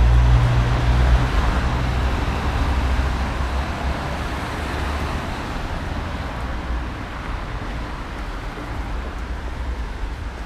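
Street traffic noise: a low vehicle rumble, loudest in the first couple of seconds and slowly easing off, over a steady hiss.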